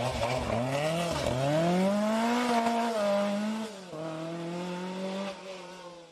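Racing car engine revving: its pitch dips twice, climbs and holds high, then drops to a lower steady note about four seconds in and fades away near the end.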